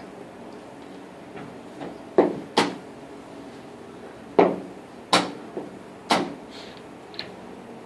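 Chess pieces knocked down on the board and the chess clock pressed during a rapid game: five sharp wooden knocks, the first two close together about two seconds in, with fainter clicks between, over a steady low hum.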